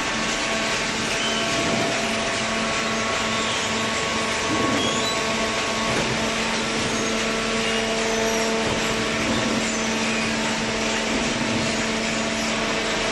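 Hydraulic baling press running: a steady hum from its electric motor and hydraulic pump, with machine noise and no break in level.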